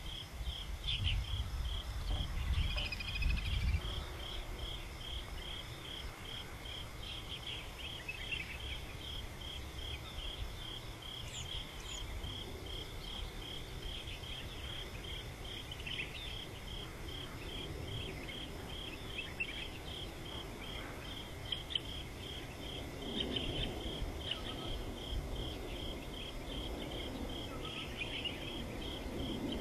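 An insect chirping high-pitched in a steady pulsing rhythm, with a low rumble in the first few seconds.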